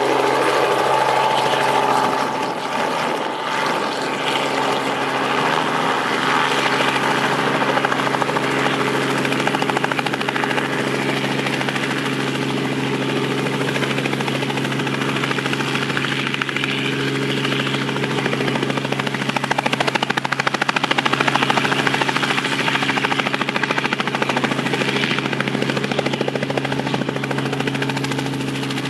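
Robinson R44 Raven II helicopter, its two-bladed main rotor and six-cylinder Lycoming piston engine running steadily as it hovers low and settles onto its skids, the rotor still turning once it is down. The sound is a constant pitched drone with rotor noise, a little louder about two-thirds of the way through.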